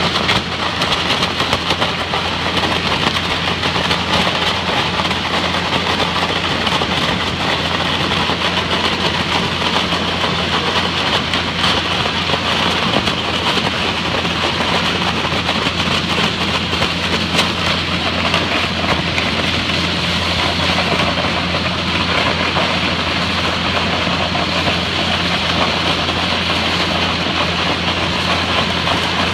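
Hydrodemolition robot's high-pressure water jet blasting concrete: a loud, steady rushing hiss over a constant low hum.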